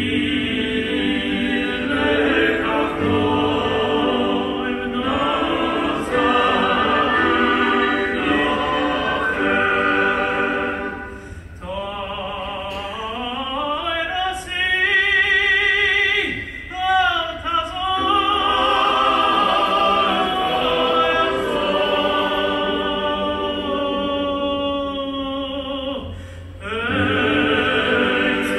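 Male choir singing in harmony; a little before the middle, the cantor's solo voice sweeps upward with vibrato to a high held note, and the choir then comes back in.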